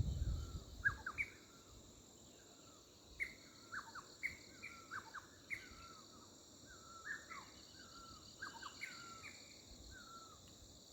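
Birds calling repeatedly, short chirps and whistled notes, over a steady, high-pitched, pulsing insect chorus. A brief low rumble sounds at the very start.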